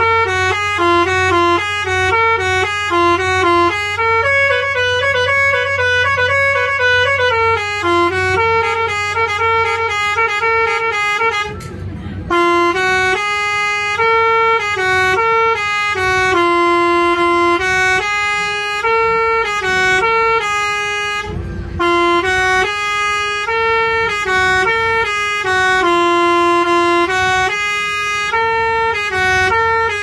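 A bus's basuri musical air horn (a 'telolet' horn) playing a melody, its notes stepping up and down in pitch, with a short break about twelve seconds in before the tune carries on.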